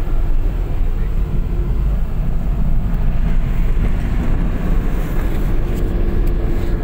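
Engine and road noise inside a moving vehicle's cab: a loud, steady low rumble.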